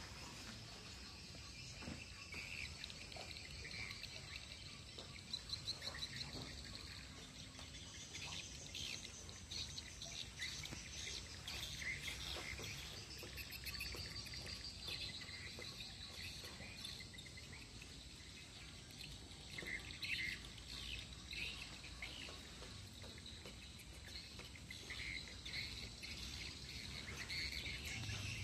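Small birds chirping and twittering on and off, in quick high calls.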